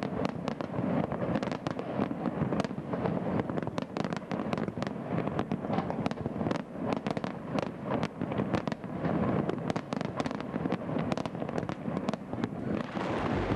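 Fireworks display: a dense, continuous run of crackling pops and bangs.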